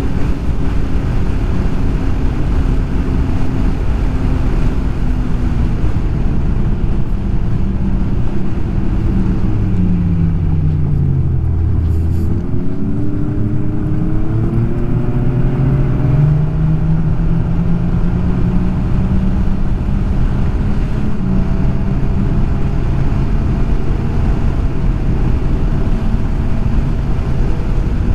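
Snowmobile engine running along a trail over a steady rush of noise. Its pitch slides down as the sled slows about a third of the way through, dips lowest near the middle, then climbs back up and holds steady.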